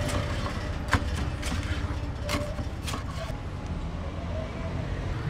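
Metal scraper blades chopping down through a folded apam balik pancake onto a wooden cutting board: about five sharp knocks in the first three seconds, the loudest about a second in. A steady low rumble runs underneath.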